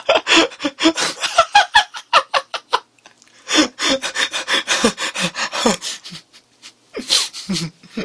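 A young man laughing hard in rapid, breathless pulses. The laughter breaks off briefly about three seconds in and again around six seconds, then starts up again near the end.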